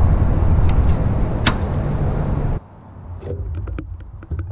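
A loud, steady low rumble that cuts off abruptly a little past halfway. Then light clicks and knocks as a hand works the controls of the unstarted Honda pull-start engine on a pressure washer.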